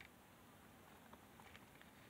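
Near silence: room tone with a few faint ticks past the middle.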